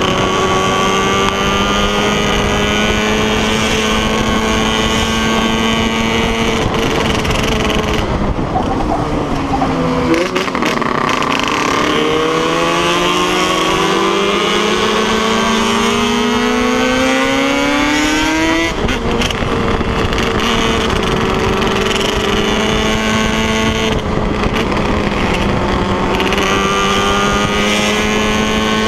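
Big-bore Yamaha DT and RD two-stroke motorcycle engines (421cc) running hard on the road with a loud, steady engine note. About ten seconds in the note drops, then climbs steadily in pitch for about eight seconds as the bike accelerates, and settles back to a steady note.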